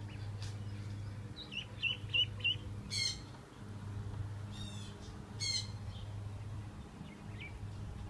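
Ducklings peeping: four quick rising peeps about two seconds in, then a couple of louder, shriller peeps near three and five and a half seconds, with fainter ones between.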